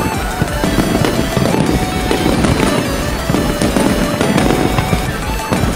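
Aerial fireworks shells bursting and crackling one after another in a dense, continuous barrage, with music playing alongside.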